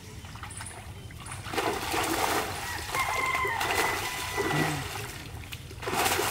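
Water splashing and sloshing in bursts as fish thrash inside a cast net being gathered in shallow river water. The splashing starts about a second and a half in, eases off around five seconds and comes back sharply near the end.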